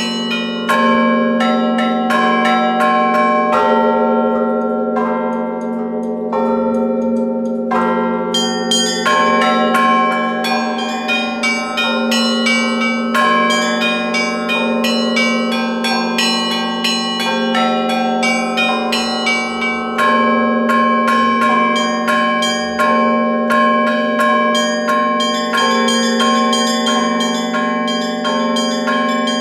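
Russian Orthodox church bells rung by hand in a continuous peal: rapid, interlocking strikes on small high-pitched bells and middle bells over a low bell tone that rings on without a break.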